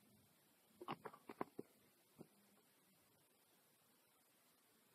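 Faint clicks and taps from handling a small plastic container of borax: a quick cluster about a second in and one more click a second later.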